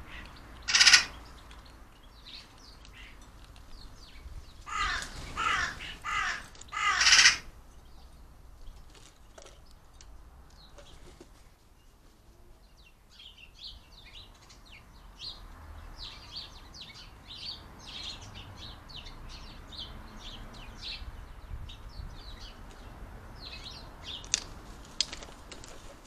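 Carrion crow cawing: one loud caw about a second in, then a run of four caws about five seconds in. Small birds twitter faintly through the second half.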